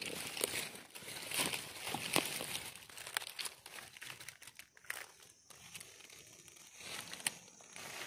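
Dry leaf litter rustling and crackling as a hand works through it to pick a bolete mushroom from the forest floor. The crackles are irregular, denser in the first few seconds and thinner after.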